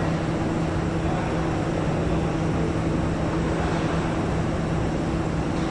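Steady factory-hall machinery noise from an assembly line: an even wash of noise with a constant low hum.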